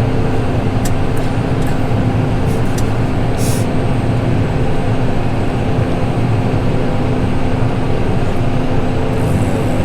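Tractor engine running steadily, heard from inside the cab, a continuous even hum.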